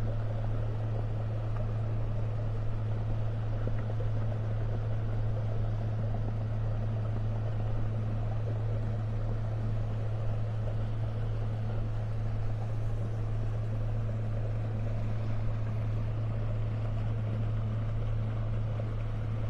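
Boat engine running steadily while under way, a constant low hum with no change in speed.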